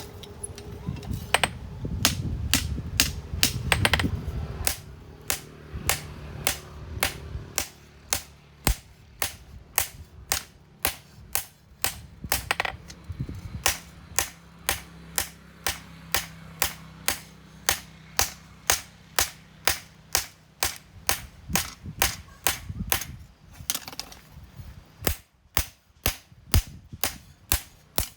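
Hand hammer striking hot steel on an anvil while forging a knife blade, in an even rhythm of about two blows a second, with a low rumble under the first few seconds.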